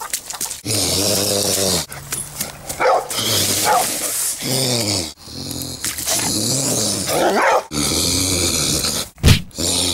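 Loud, drawn-out growling and snarling from a person's voice in long bursts, with a sharp knock near the end.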